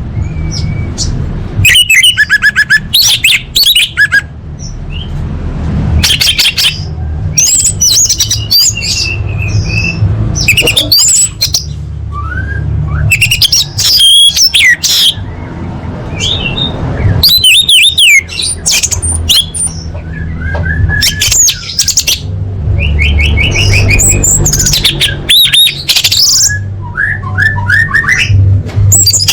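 Orange-headed thrush singing in quick, varied phrases of chirps, trills and rising and falling whistles, with short pauses between them. A low hum runs underneath.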